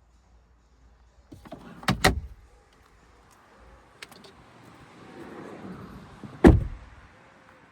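Sounds from the bodywork of an Audi SQ5: a sharp double clunk about two seconds in, then a motor whirring for about two seconds and a heavy shutting thud.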